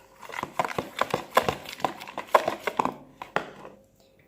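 Homemade slime being worked in a container: quick irregular sticky clicks and squelches, dying away near the end.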